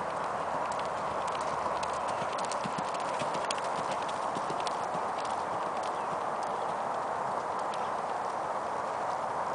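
Hoofbeats of a ridden horse moving around a dirt arena, a run of soft thuds that are plainest about two to four seconds in as it passes closest, over a steady hiss.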